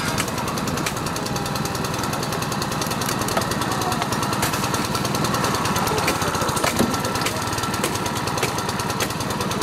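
Small petrol engine of a hydraulic rescue-tool power pack running steadily with a fast, even pulse, driving a hydraulic cutter closed on a car's door pillar. A few sharp snaps stand out now and then.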